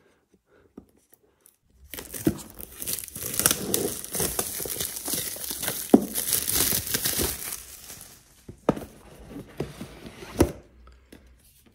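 Plastic shrink wrap being torn and peeled off a cardboard box, crinkling and crackling continuously from about two seconds in. The crinkling eases after about eight seconds, with a few knocks as the box is handled.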